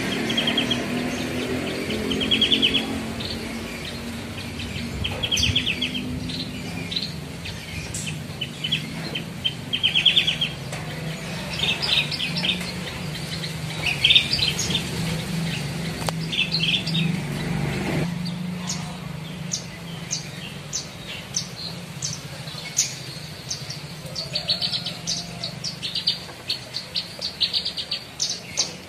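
Caged Javan bush lark (branjangan) singing its mimicked song phrases: short bursts of rapidly repeated high notes every second or two, turning into quicker, sharper chirps about two-thirds through. A low steady hum underneath stops abruptly partway through.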